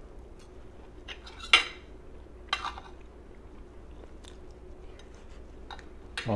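A metal fork clinking and scraping against a ceramic plate a few times while eating, the loudest clink about one and a half seconds in.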